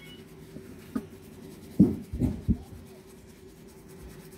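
Hands scrubbing shampoo lather through wet curly hair, a soft rubbing, with a few short dull thumps, three of them close together about two seconds in.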